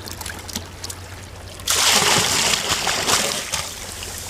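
Bait bucket tipped out, its water pouring and splashing into shallow water. It starts suddenly about a second and a half in and trails off about two seconds later.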